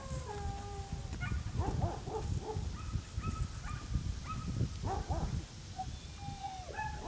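Australian cattle dog whining and giving short yips while heeling, a run of brief high calls, some sliding down in pitch, typical of an excited working dog.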